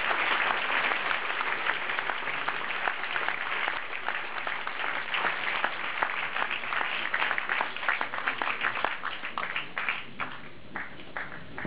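Audience applauding, the dense clapping thinning into scattered single claps and dying out near the end.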